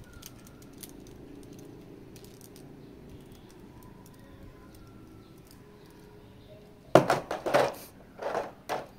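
Small hard parts being handled, with faint rustling and then two quick loud bursts of clattering and clinking near the end.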